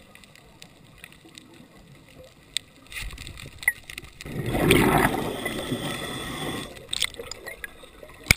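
Underwater camera audio of a scuba diver's exhaled bubbles gurgling up from the regulator for about two and a half seconds around the middle, between quieter stretches with a few sharp clicks.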